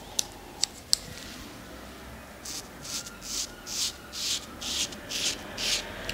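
Straight razor scraping across a lathered, stubbled scalp in short quick strokes: about eight strokes at roughly two a second in the second half. Three sharp clicks come first.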